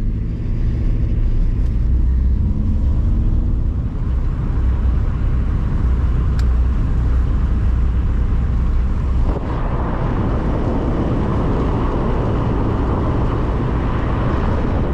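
Van on the move towing a boat trailer: a steady low rumble of engine and tyres on the road. From about nine seconds in, a louder rushing noise joins it.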